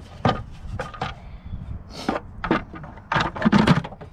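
Plastic air cleaner housing and intake duct of a 2002 Chevrolet S-10 being handled and fitted back into place: a string of hollow plastic knocks and clatters, coming thickest and loudest in a quick cluster near the end.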